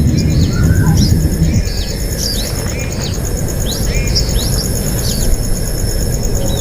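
Birds chirping: a quick series of short, sweeping high notes, about two a second, over a fast, steady high-pitched pulsing and a low rumble that fades out about a second and a half in.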